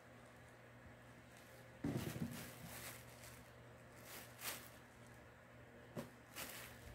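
A few short, faint rustles and bumps over quiet room tone. The loudest comes about two seconds in, with weaker ones later.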